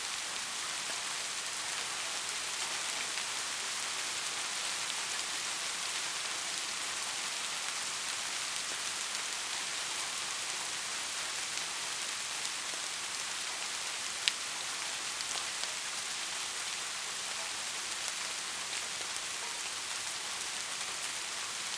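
Steady rain falling, an even hiss with scattered single drop ticks and one sharper drop about two-thirds of the way through.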